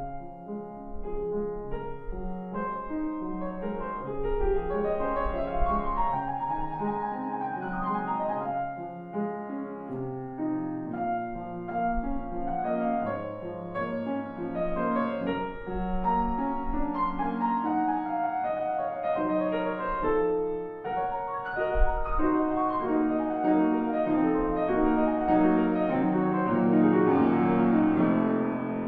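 Solo classical piano: a Longato grand piano played continuously in quick runs of many notes, with a short drop in loudness and a sharp accented chord about three-quarters of the way through.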